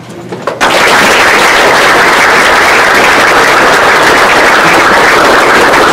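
Audience applauding loudly, many hands clapping at once, starting about half a second in.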